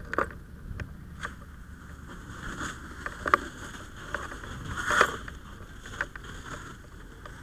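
Low wind rumble on a helmet-mounted microphone, with scattered clicks, knocks and rustles of firefighter gear as the wearer walks; the loudest rustle comes about five seconds in.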